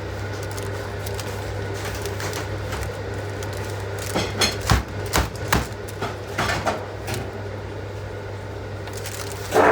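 A steady low hum, with a run of sharp knocks and clatter from about four to seven seconds in.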